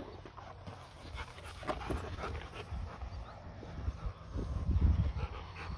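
Dogs panting, with a louder low rumble about four and a half seconds in.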